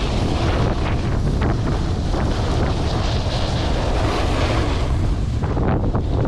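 Wind buffeting the microphone, a loud, steady rumble with a hiss over it.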